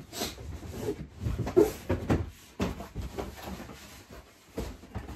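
Irregular knocks, scrapes and rustles of objects being moved and handled, the loudest knock about a second and a half in.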